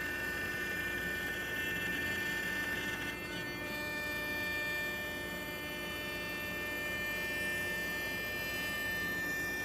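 CNC router spindle running with a steady high-pitched whine, making a surfacing pass to flatten a maple board.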